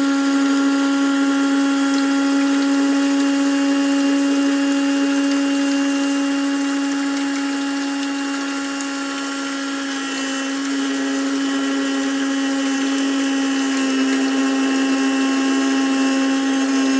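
Small electric windshield washer pump running with a steady whine as it pumps water through a homemade sprinkler; it softens slightly about halfway through, then steadies.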